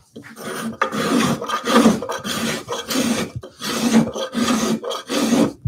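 Low-angle spokeshave cutting end-grain elm in a series of about five or six quick strokes, each a dry rasping scrape as the blade lifts a shaving.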